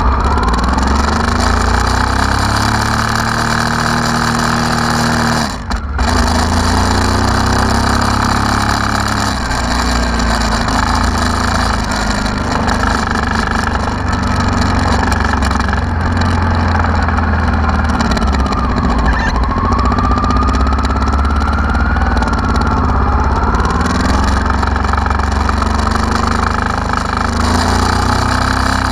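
Honda Africa Twin RD04's 750 cc V-twin engine running, its revs rising and falling again and again. The sound dips briefly about six seconds in.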